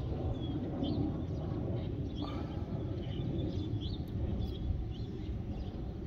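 Small birds chirping, short high notes repeated again and again, over a steady low rumble.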